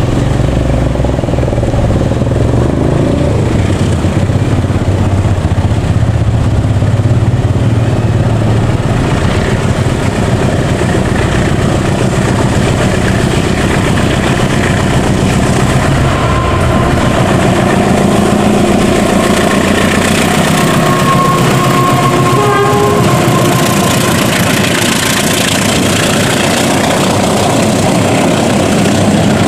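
Diesel-electric locomotive pulling a train of passenger coaches away under power, its engine pitch rising about halfway through. The coaches rumble past on the rails near the end.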